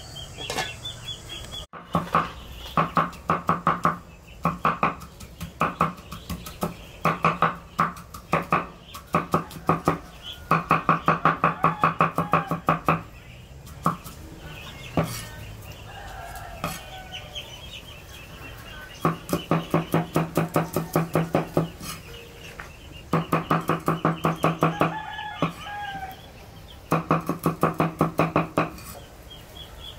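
Rapid runs of knife strokes chopping greens and chilies on a round wooden cutting board, in bursts of a few seconds with short pauses between. Chickens cluck and a rooster crows in the pauses.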